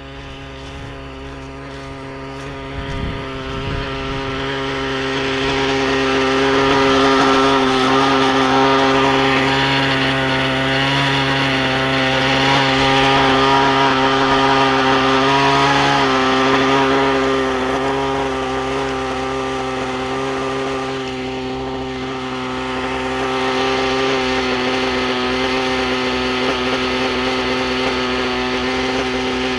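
Radio-controlled nitro helicopter's glow engine and rotors running at a steady pitch. It grows louder over the first several seconds as it spools up, then holds, with a slight dip a little past the middle.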